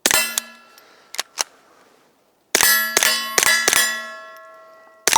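Suppressed .22 LR pistol (GSG 1911 with a Banish 22 suppressor) firing at steel plates. Each muffled shot is followed by the bright, lingering ring of a hit plate: a few scattered shots, then a quick string of about seven, and another shot near the end.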